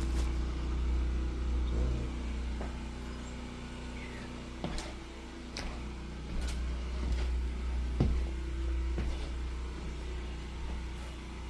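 A vehicle's engine running with a steady low hum, with a few scattered clicks and knocks over it.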